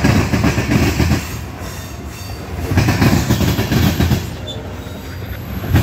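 Freight train of covered hopper cars rolling past close by: a steady low rumble of steel wheels on rail that swells into a loud clatter about every three seconds as each set of wheels goes by.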